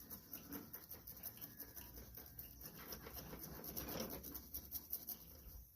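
Faint rustling and light scratching of small parts being handled, with many small irregular ticks.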